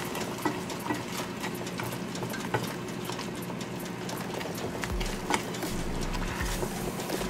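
Wooden spoon stirring thick barbecue sauce in a stainless steel pot, with scattered light clicks and scrapes against the pot over a steady simmer.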